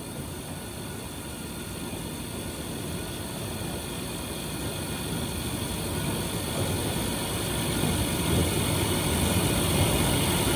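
Milling machine running, a steady mechanical drone with a high hiss that grows gradually louder.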